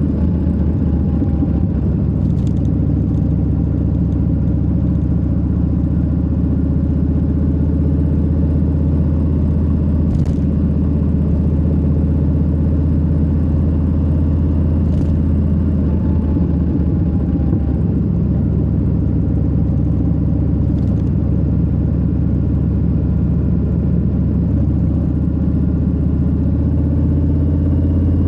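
Harley-Davidson Low Rider S's Milwaukee-Eight 117 V-twin running steadily under way, with a deep, even rumble and a few faint ticks.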